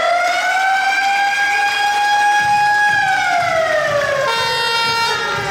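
A siren gives one held wail, which winds down in pitch from about three seconds in. A steady horn tone joins near the end.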